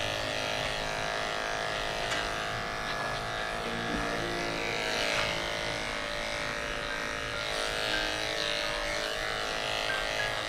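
Corded electric dog-grooming clippers running with a steady buzz as they shave through a severely matted coat.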